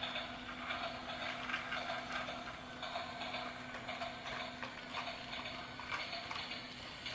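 Battery-powered toy steam train running on its plastic track: a steady small-motor whir with rhythmic clicking from the wheels and cars.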